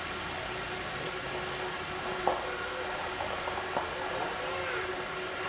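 Live-steam miniature locomotive standing in steam and hissing steadily, with one sharp clank about two seconds in and a few lighter knocks soon after.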